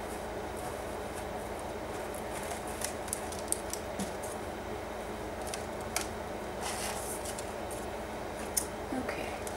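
Sheer organza ribbon and paper rustling as a ribbon tie is pulled loose and a handmade paper journal is opened: scattered short, crisp rustles and clicks over a steady background hum.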